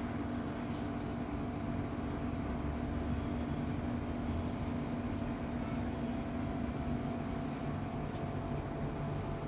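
A steady low mechanical hum with a droning tone that shifts lower near the end.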